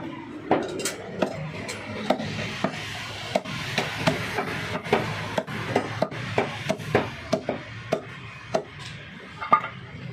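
Heavy butcher's cleaver chopping buffalo ribs into small pieces on a wooden chopping block. The sharp chops come in a quick, irregular run of two or three a second, with one louder chop near the end.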